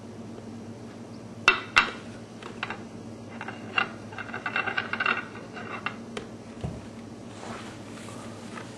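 A glass jar clinking and knocking against a glass baking dish as it is set down upside down in the water over a tealight: two sharp knocks, then a run of ringing glass clinks. A faint low hum runs underneath.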